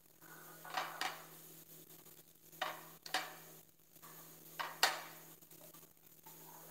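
Salad of sliced onion, shredded carrot and cabbage being tossed by hand in a ceramic bowl: soft rustling of the vegetables, with about five short knocks and clinks of crockery on the stone counter.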